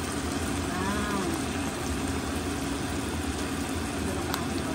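Eggplant, onions and garlic frying in oil in a pan, a steady sizzle, as oyster sauce is poured in; a low steady hum runs underneath.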